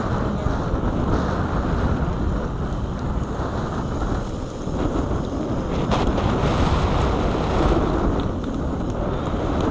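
Steady wind noise buffeting the microphone of a camera riding on a BMX bike at speed along a packed-dirt track, with a low rumble from the ride.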